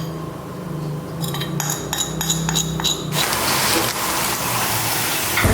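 A spoon clinking with a ringing tone against a glass bowl several times, then a steady hiss from about three seconds in.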